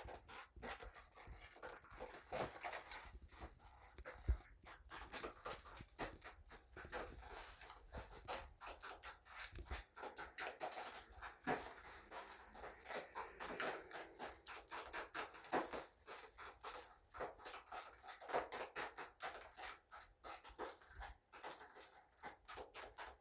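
Banana pancake batter being stirred in a bowl: quick, uneven scraping and clicking strokes of the utensil against the bowl.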